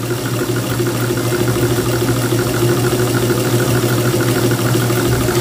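Domestic zigzag sewing machine running steadily as it sews a dense zigzag satin stitch through fabric held in an embroidery hoop. The electric motor hums under a fast, even ticking of the needle mechanism.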